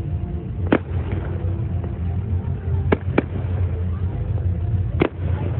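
Fireworks going off: four sharp bangs, one about a second in, two close together near the middle and one near the end, over a steady low rumble.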